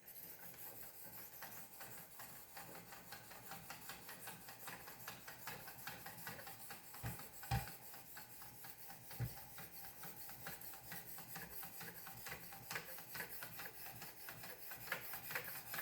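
Sharpening stones of a Wicked Edge WE50 guided sharpener sliding up and down by hand across the edge of a Zwilling prep knife: faint, steady rasping scrapes in quick repeated strokes, with a soft knock or two about halfway through.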